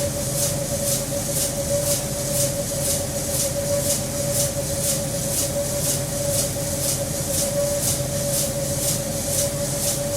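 Brewing grist mill running steadily: a constant motor hum and rumble with a rhythmic swish about twice a second.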